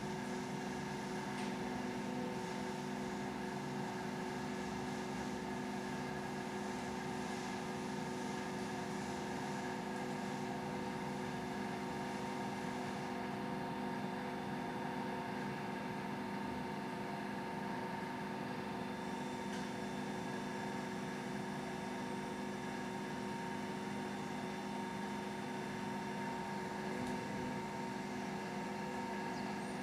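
Electric tilt drive of a Tehag 6000 kg heavy-duty welding positioner running under power, its motor and gearing giving a steady hum with several fixed tones as the faceplate tilts slowly over.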